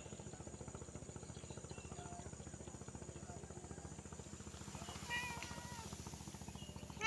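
A calico domestic cat meows once, a short call about five seconds in, and starts a second, louder meow right at the end. A steady low pulsing hum runs underneath.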